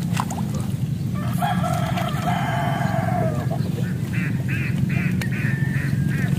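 A rooster crowing once, a long call of about two and a half seconds, followed by a run of short repeated bird calls, about three a second, over a steady low hum.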